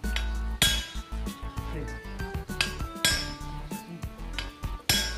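Hammer blows ringing on metal, driving a part into a rotavator's gear housing to seat it tightly: three loud strikes with lighter taps between, over background music.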